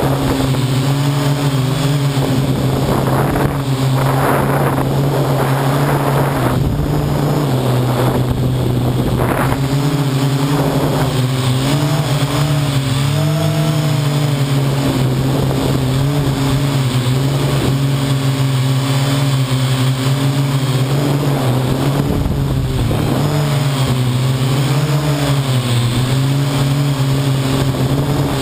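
Parrot AR.Drone quadcopter's electric motors and propellers whirring loudly and steadily at close range, the pitch wavering up and down as the motors change speed in flight. Brief bursts of rushing noise come several times in the first ten seconds and once about 22 seconds in.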